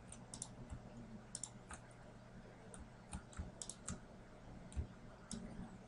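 Faint, scattered clicks of a computer mouse and keyboard, a few sharp ticks every second or so, over a faint low hum.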